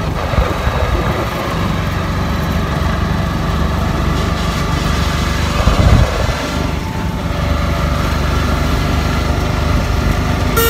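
Auto-rickshaw's small engine running steadily while it drives, heard from inside the passenger cabin, with a loud bump about six seconds in.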